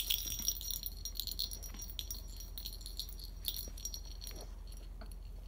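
Small metal bell jingling irregularly as a small dog moves about, busiest over the first few seconds and dying away a little after four seconds in.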